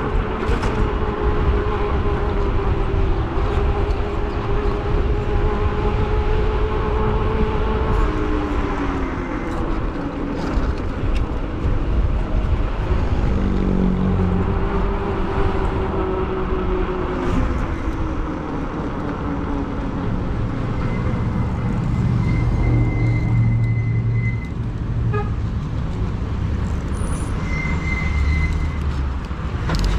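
Street traffic heard while riding an e-bike, with a heavy low rumble of wind and road noise. In the first half, passing engines rise and fall slowly in pitch. In the second half, two thin high tones sound: one of about three seconds and a shorter one.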